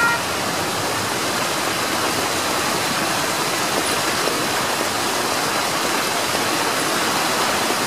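Water fountains splashing with a steady rushing spray. A level-crossing bell's ringing stops just after the start.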